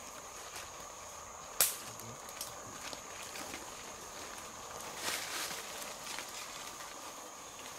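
Footsteps on the forest floor, rustling through leaf litter, with one sharp loud crack about one and a half seconds in, like a twig snapping underfoot. A steady high-pitched drone continues underneath throughout.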